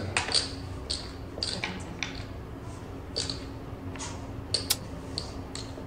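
Blackjack table clatter: a scattered string of light, sharp clicks and taps as the dealer collects the cards and casino chips from the felt, over a steady low hum.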